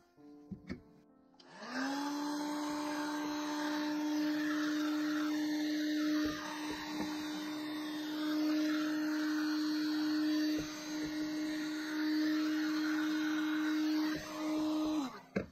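Electric heat gun running: its fan motor spins up to a steady whine with a rush of air about a second and a half in, runs on steadily, and winds down near the end. A few light knocks from work at the vise are heard over it.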